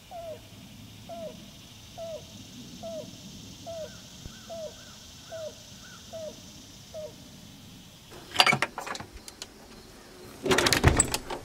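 A bird calls a short, downward-sliding note nine times, about one call a second, over a faint steady hiss. From about eight seconds in, a loud burst of clattering knocks, then a longer one near the end, as a door is handled and opened.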